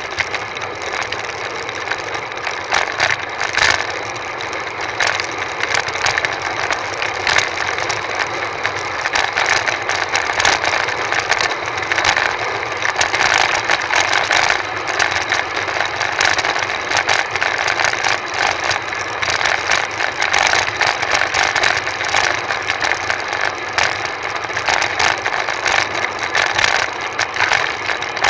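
Steady rush of wind and road rattle on a bicycle-mounted camera speeding downhill: a constant hiss with many small clicks and jolts from the road surface.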